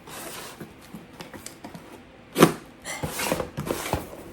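A cardboard package being cut open with a pocket knife and handled: scraping and rustling of the box and tape, with one sharp knock about two and a half seconds in.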